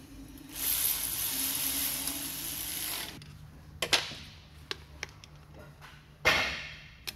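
A steady hiss of air for about two and a half seconds that cuts off suddenly, then a few sharp metallic clicks and knocks, the loudest about six seconds in.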